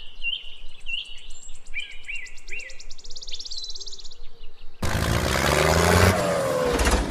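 Birds chirping in short repeated notes over a fast, high ticking trill in quiet outdoor ambience. About five seconds in, a loud engine sound cuts in abruptly.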